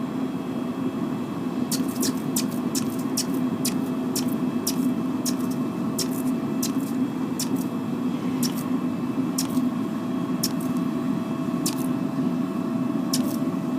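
Forced-air propane burner running steadily on a melting furnace. Over it come irregular sharp ticks, some twenty in all, as molten aluminum drips into water.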